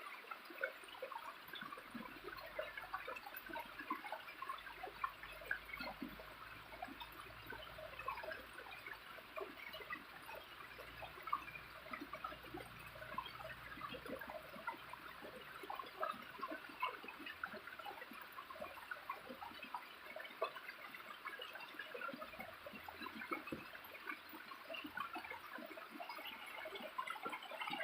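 Small waterfall trickling and splashing steadily, a dense patter of tiny droplet sounds.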